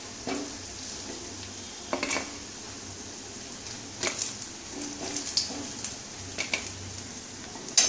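Mustard oil sizzling in a kadai around battered pumpkin-flower fritters, with a metal spatula scraping and knocking against the pan every second or two as the fried fritters are lifted out.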